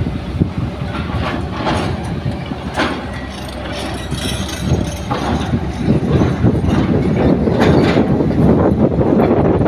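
Kobelco hydraulic excavator working at a soil face: its diesel engine runs under load with a dense rumble, and the bucket and linkage give sharp knocks now and then. The engine grows louder in the second half as the arm works.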